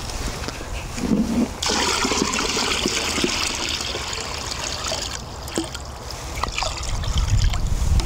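Water poured from a plastic bucket into a shallow plastic tub of water: a steady splashing pour that starts about two seconds in and stops abruptly around five seconds, followed by a few drips.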